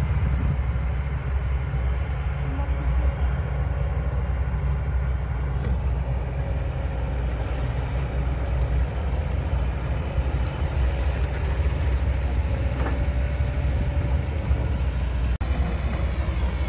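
Kobelco SK200 hydraulic excavator's diesel engine running steadily under working load as the machine digs and swings, a continuous low rumble.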